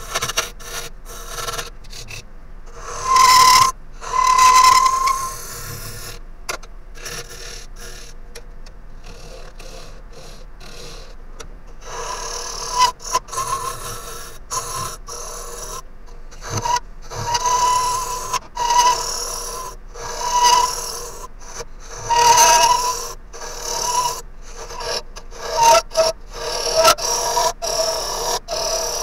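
A hand-held turning tool hollowing the end grain of a green Japanese ornamental cherry blank spinning on a wood lathe, throwing off long wet shavings. The cutting comes in bursts with brief breaks, the heaviest cuts about 3 seconds in and from about 12 seconds on, and a steady ringing tone rides on the heavier cuts.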